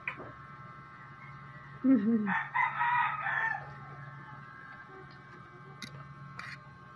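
A rooster crowing once in the background, a harsh call of about a second and a half starting just after two seconds in, right after a short falling vocal sound from the child. Two brief clicks come near the end.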